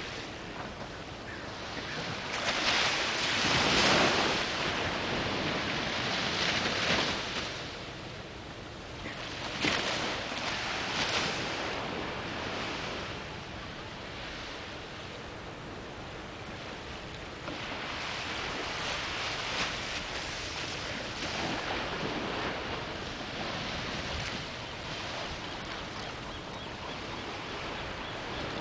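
Ocean waves washing on the shore, a steady rush of surf that swells louder and fades back several times.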